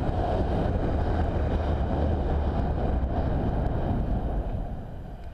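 Wind rushing over the microphone of a camera on the canyon swing's rope as the rider sweeps through the swing's arc, a loud steady rumble that fades near the end as the swing slows.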